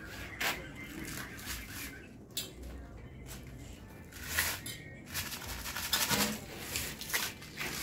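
A plastic drink bottle crackling and clicking in the hands as its screw cap is twisted off: a series of short sharp crackles, busiest in the second half.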